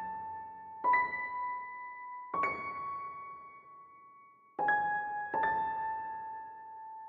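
Background music: slow solo piano, four single notes struck one to two seconds apart and left to ring out.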